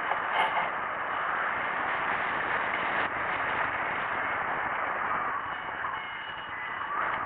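Steady rush of airflow over the microphone of a camera mounted on a hang glider in flight, with a short bump about half a second in.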